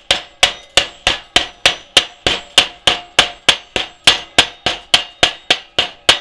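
Chipping hammer striking the slag off a 7018 stick-weld bead on steel plate: a steady run of sharp metallic blows, about three a second, each with a short ring.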